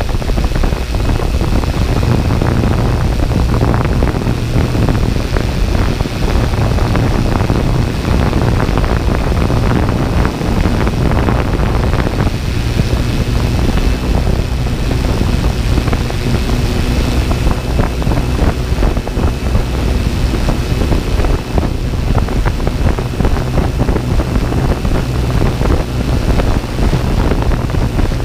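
Steady noise of a quadcopter drone's spinning propellers heard through its onboard camera, with heavy wind rumble on the microphone and a thin, steady high whine.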